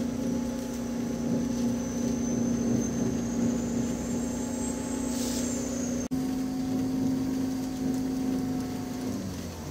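Car engine and road noise heard from inside the moving car: a steady drone with a click about six seconds in where the sound jumps, and the engine note dropping in pitch near the end as the car slows.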